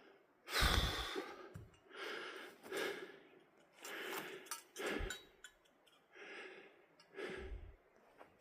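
A man breathing hard while hiking: about seven heavy breaths, roughly one a second, with a few dull low thumps among them.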